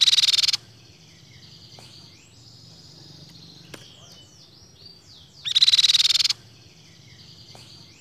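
Crescent-chested babbler (tepus pipi perak) singing: a loud, rapid high trill lasting under a second at the start and again about five and a half seconds in, with softer chirps and gliding whistles between.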